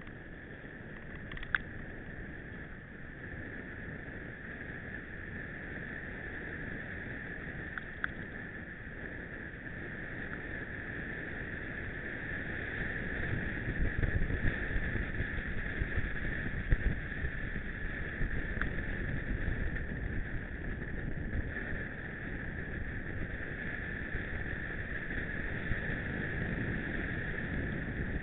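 Mountain bike riding over rough ground: a continuous rumble of tyres and frame with a steady high buzz, louder from about halfway through, and a few sharp knocks.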